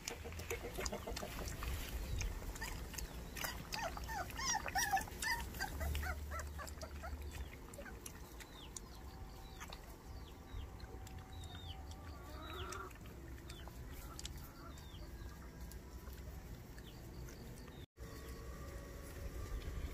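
A litter of young white baekgu puppies whimpering and yipping in short high squeals, thickest about four to five seconds in, then only scattered squeaks.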